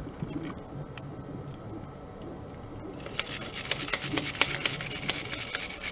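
Small clicks and rattles of plastic blaster parts and metal tools being handled and fitted together, sparse at first and becoming a busy run of small clicks about three seconds in.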